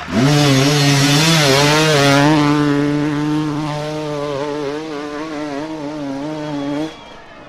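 Dirt bike engine revving hard and held high as it climbs a steep rocky slope, its pitch wavering as the throttle works. The engine sound stops abruptly near the end.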